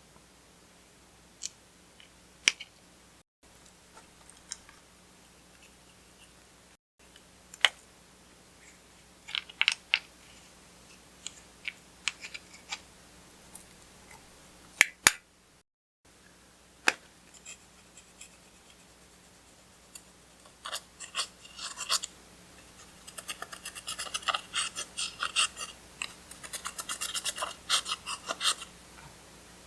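Clear slime being worked by hand: scattered sticky clicks and pops, turning into dense, rapid crackling about two-thirds of the way through as the slime is pressed and folded.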